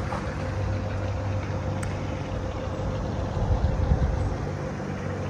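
Steady low rumble and hiss of outdoor background noise, with a faint steady hum running through it.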